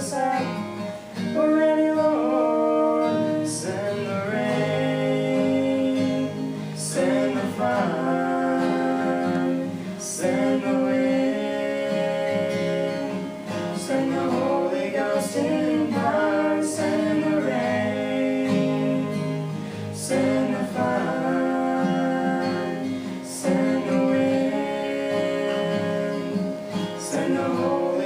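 A man and a woman singing a gospel duet with guitar accompaniment.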